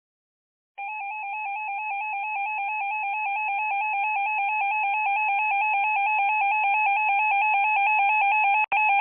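Electronic emergency-alert warble tone, switching rapidly and evenly between a low and a high pitch, starting about a second in and growing louder. It is broken by a click and a brief dropout near the end.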